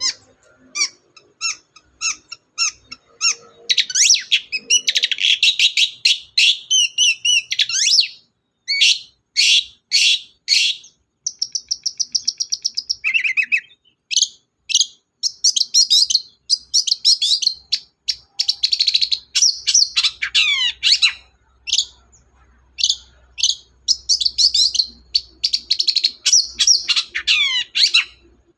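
Long-tailed shrike (cendet) singing a fast, varied song of chattering notes, quick trills and downward-sliding calls, in phrases broken by short pauses.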